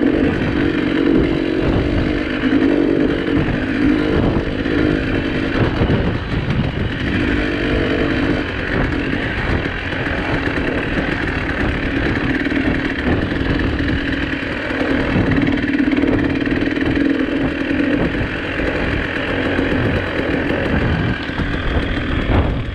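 Vehicle engine pulling steadily at low speed over a rough, rutted track, with irregular knocks and rattles from the bumps.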